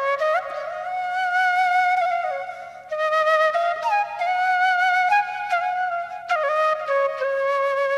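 Background music: a flute playing a slow melody of long held notes with small bends between them.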